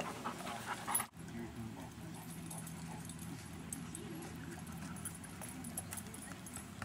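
Dogs at a dog park, with faint whimpering among them; the sound drops out sharply for an instant about a second in.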